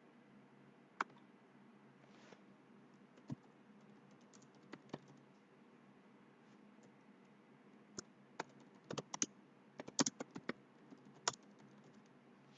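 Scattered clicks from a computer keyboard and mouse: a few single clicks, then a quick run of them from about nine to ten and a half seconds in, over a faint steady low hum.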